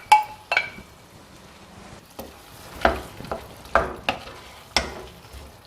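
A spoon knocking and scraping in a cooking pan as mashed butter beans and potato are stirred into a thick simmering gravy, with a faint sizzle underneath. The knocks are irregular, roughly one every half second.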